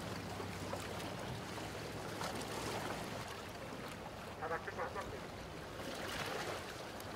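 Steady wind and water sound around a small boat at sea, with a constant low hum underneath.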